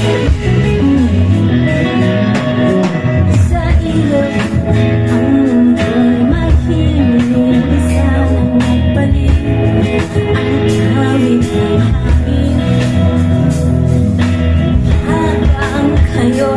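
Live band performing a song, guitar and a steady beat under a singing voice.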